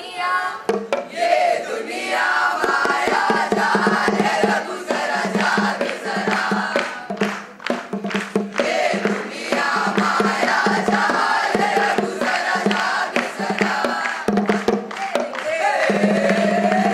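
A group of children singing and chanting together over music with a steady, fast beat.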